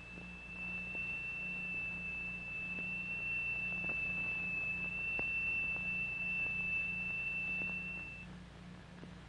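Steady high-pitched tone of a crystal-excited triangular plate vibrating at one note to form a sonorous sand figure. The tone holds one pitch and cuts off about eight seconds in.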